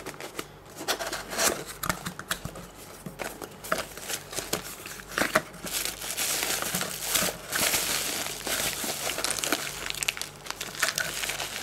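Bubble wrap crinkling and a cardboard box rustling as hands open the box and dig a set of engine main studs out of their plastic wrapping, a busy run of small crackles that grows denser about halfway through.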